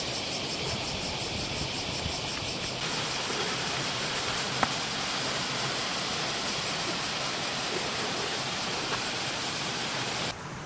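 Steady outdoor background noise, an even hiss that reaches high up, with one sharp click about four and a half seconds in. The noise drops away suddenly near the end.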